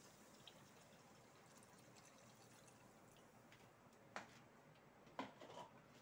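Mostly near silence with a faint trickle of coconut milk being poured into a stainless steel pan. About four and five seconds in come two light knocks from the wooden spoon stirring in the pan.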